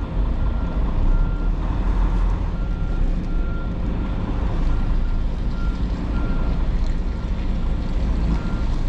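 Semi truck's diesel engine running with a steady low rumble, while a vehicle's reversing alarm beeps repeatedly, about once a second.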